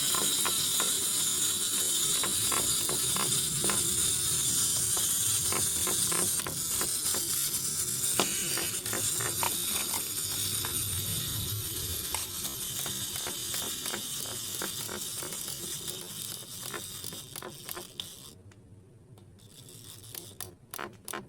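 Small plastic toys' gear mechanisms whirring and clicking together in a steady ratcheting rattle. It fades after about eighteen seconds, leaving scattered clicks.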